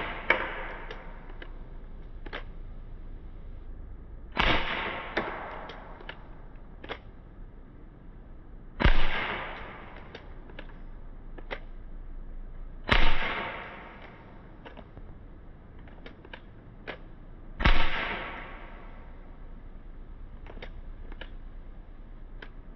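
BB gun firing four single shots, each about four and a half seconds apart, each crack trailing off for a moment, with small clicks between shots.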